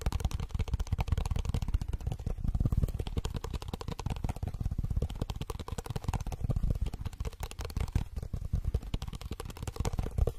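Very fast fingertip tapping on a small hard object held right up against the microphone: a dense stream of quick taps with a heavy close-up thud, which stops suddenly at the end.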